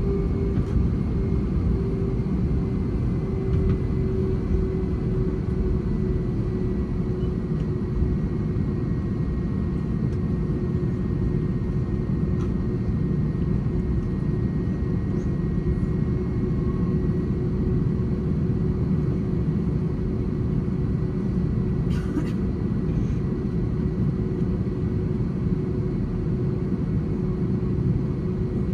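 Steady cabin roar of an Airbus A321-231's IAE V2500 turbofan engines and airflow, heard inside the passenger cabin in flight, with a steady hum that drifts slightly lower. A single brief click sounds about three quarters of the way through.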